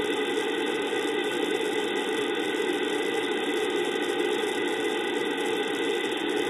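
Steady FM radio static, a loud hiss with faint steady tones in it, from an RTL-SDR receiver in narrowband FM with the squelch open on the ISS downlink at 145.800 MHz. It is the sound of no signal: the station's transmitter is off between transmissions.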